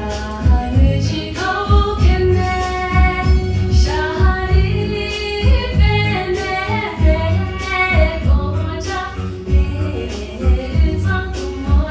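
A woman singing a Tibetan song with long, ornamented held notes over a backing track with a steady low beat.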